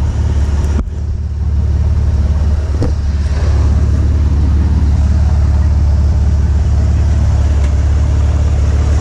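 Ford F-150 truck engine and exhaust running steadily on the road, with a deep rumble; an exhaust leak the owner thinks comes from the header. A sharp click under a second in, and the sound gets louder about three seconds in.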